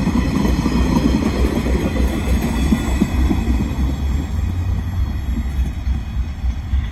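Empty flat wagons of a freight train rolling past, their wheels rumbling and clattering on the rails, the sound fading from about four seconds in as the tail of the train draws away.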